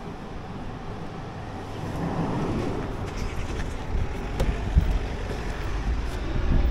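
Wind buffeting an action camera's microphone, a low rumbling noise that grows louder about two seconds in, with a few faint clicks.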